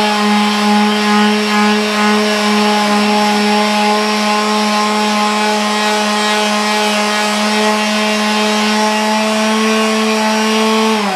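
DeWalt quarter-sheet finishing sander running steadily at full speed with a low buzzing hum. Its 320-grit pad is rubbing over the hardwood top of a walnut and maple chess board.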